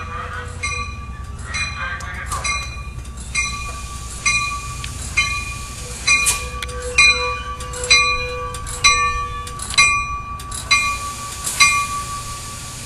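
Bell of an arriving Metrolink commuter train ringing steadily, about one strike a second, getting louder as the train pulls into the platform, over the low rumble of the train.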